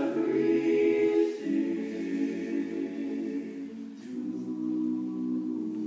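All-male a cappella group singing close harmony in long held chords, no instruments, changing chord about a second and a half in and again about four seconds in.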